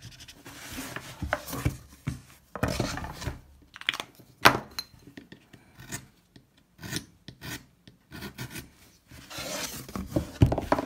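Hand carving gouge cutting grooves into a wooden woodcut block: a run of short, irregular scraping strokes, with one sharp click about four and a half seconds in.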